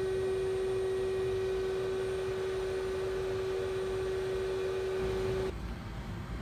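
Air-cooled CNC spindle run from a VFD, spinning at a steady speed with a steady whine and fainter overtones. The whine cuts off about five and a half seconds in, leaving a low rumble.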